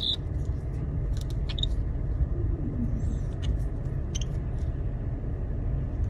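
Steady low rumble inside a car cabin. Scattered small high clicks and a couple of brief high chirps from cockatiels, near the start and about a second and a half in.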